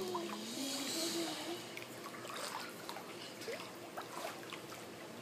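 Swimming pool water sloshing and trickling with small splashes as a child moves in the shallow water at the pool's edge. A faint voice is heard briefly in the first second or so.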